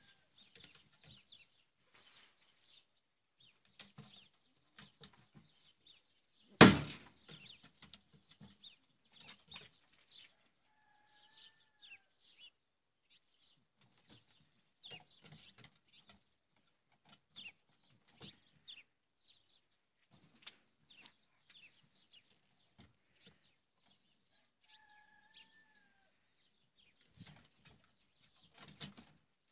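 Faint scattered rustles and ticks, one sharp loud knock about seven seconds in, and a short bird call heard twice in the background.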